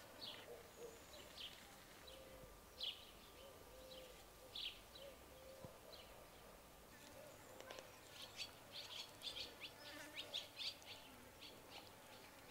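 Faint bird chirps, short and high, spaced about a second apart at first and coming quicker in the second half, over quiet background.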